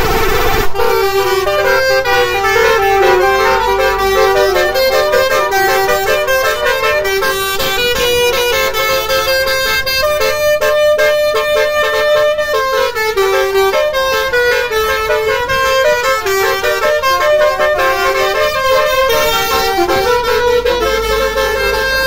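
Basuri telolet musical horns playing a tune: a fast run of horn notes stepping up and down one after another, without a break.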